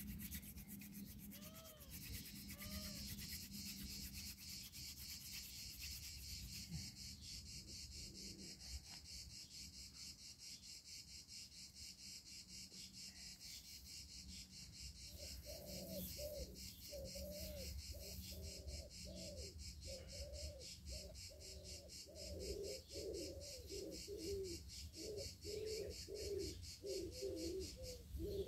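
A dove cooing, a couple of calls near the start and then many in a row through the second half, over a steady high insect drone with a fast pulse.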